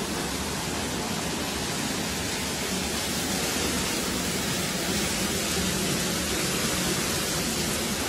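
Heavy rain after a hailstorm, a steady even hiss with no distinct drops or impacts.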